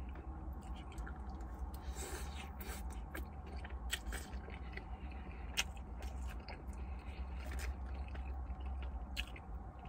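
Close-up chewing and mouth sounds of a man eating loaded fries, with scattered small clicks from a plastic fork and food box, over a steady low hum.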